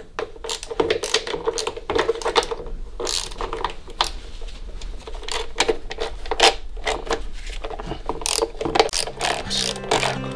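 Hand ratchet with a long extension clicking in quick, irregular runs as the bolts of a Toyota VVTL-i engine cover are undone.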